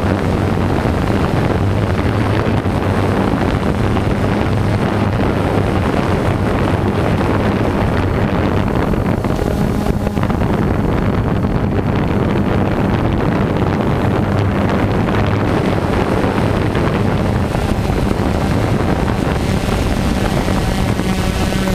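DJI quadcopter drone hovering just above the pavement: a loud, steady rushing noise of propeller wash with a low, slightly wavering motor hum.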